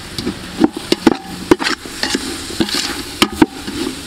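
Sliced lemongrass and aromatics sizzling in hot oil in a large aluminium stockpot, stirred with a metal ladle that knocks and scrapes against the pot's sides again and again at an uneven pace.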